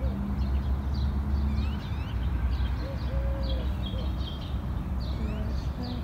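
Many small birds chirping in quick calls that rise and fall, with a short low hooting note now and then, over a steady low rumble.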